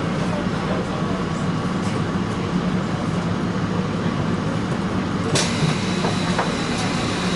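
Taipei Metro C301 electric train running on the line, a steady low rumble. About five seconds in, a steady high whine sets in together with a rise in hiss.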